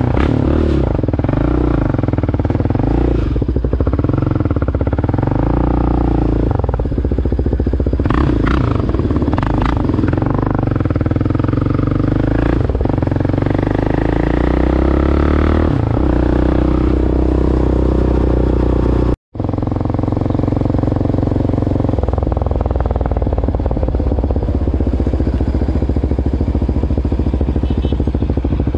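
Yamaha Raptor 700R quad's single-cylinder engine running as it is ridden, its pitch rising and falling with the throttle, with a brief break about two-thirds of the way through.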